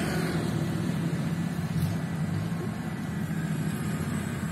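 Rice combine harvester running steadily with a low engine drone as it works through standing rice.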